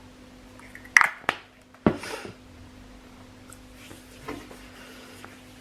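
Handling of a plastic body-lotion bottle: a few sharp knocks and clicks about a second and two seconds in, then faint rustling.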